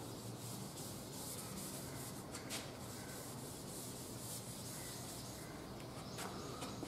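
Duster rubbing chalk off a chalkboard: a run of faint, quick wiping strokes that die away about a second before the end.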